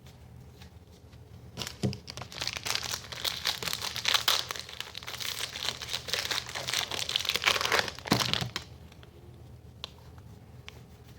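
Foil wrapper of a baseball card pack crinkling as it is torn open and handled, a dense crackle lasting about seven seconds, then a few faint clicks.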